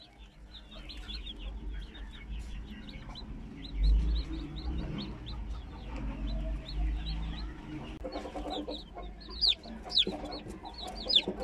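Newly hatched chicks peeping, many short high peeps that grow louder and sharper near the end, with a broody hen clucking low among them. A low rumble runs underneath, strongest about four seconds in.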